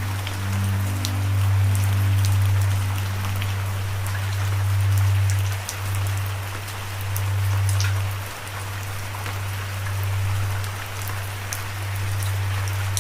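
Steady rain falling, with scattered individual drops ticking, over a loud low droning tone that holds and shifts pitch slightly a couple of times.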